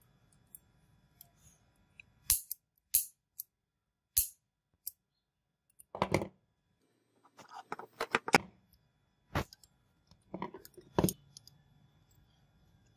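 Metal parts of a disassembled vintage oil lighter clicking and clinking as they are handled and set down on a hard surface. The sharp knocks come singly and in short irregular clusters, loudest about six, eight and eleven seconds in.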